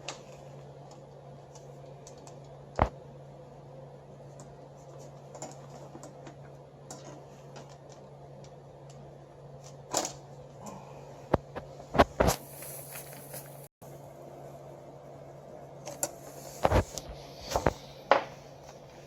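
Scattered sharp clicks and knocks of small hard parts and tools being handled, irregularly spaced, with a cluster of several in quick succession around the middle and another near the end, over a steady low hum.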